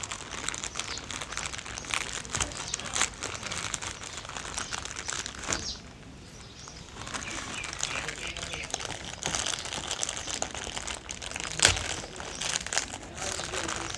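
Plastic courier mailer bag crinkling and crackling as hands peel its packing tape and pull the bag open, with scattered sharp crackles and a brief quieter pause about six seconds in.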